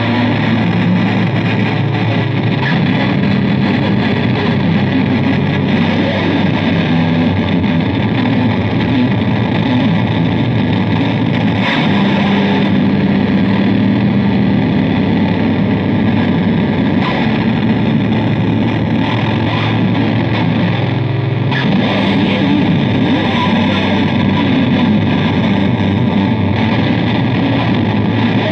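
Electric bass guitar run through heavy distortion on a multi-effects pedal, playing a loud, steady harsh-noise drone: a dense wall of fuzz over sustained low notes that shift every several seconds.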